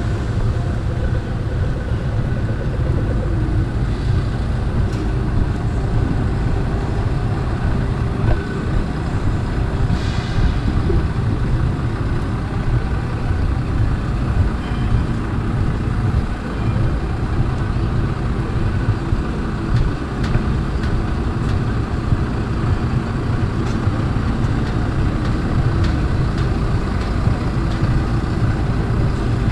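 Street traffic: a steady low rumble of road vehicle engines running without a break.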